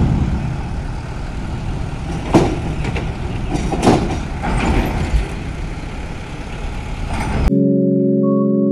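Trucks running as they drive off a ro-ro ferry onto the steel loading ramp, with several sharp clanks and knocks as they cross the ramp plates. About 7.5 seconds in, this cuts off suddenly and steady music begins.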